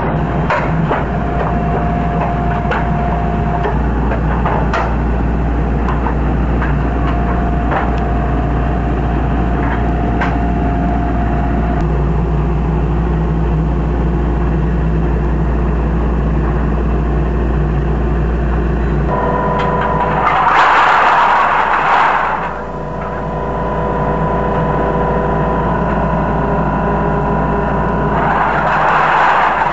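Can-crushing press machine running with a steady motor hum and scattered clicks. About 19 s in its note changes, and two loud hissing-crunching bursts of about two seconds each follow, one about 21 s in and one near the end.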